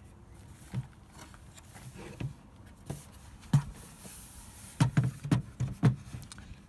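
Plastic headlight housing of a Ford Focus Mk2 being handled and turned over by hand: scattered knocks and clicks of hard plastic, with a quick run of them about five seconds in.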